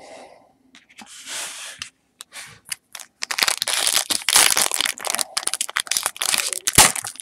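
A foil trading-card pack (Topps Chrome) being torn open by hand. There are a few short, soft rustles, then loud, dense crinkling and crackling of the wrapper from about three seconds in.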